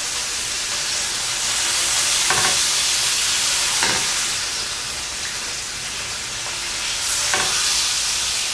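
A striploin steak sizzling steadily on a hot grill pan as its side is seared, held upright with tongs. Three short clicks come through the sizzle.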